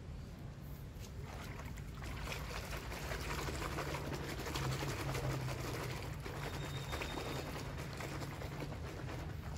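A hand swishing and churning soapy water in a plastic basin, splashing and whipping up foam; the splashing starts about a second in. A steady low hum sits underneath.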